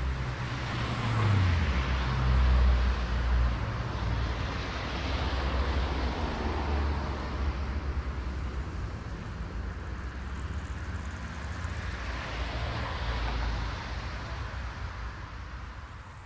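Cars passing on a road: tyre and engine noise swells as one car goes by about two seconds in, with its engine hum dropping in pitch, and another swells about twelve seconds in before the traffic noise fades near the end.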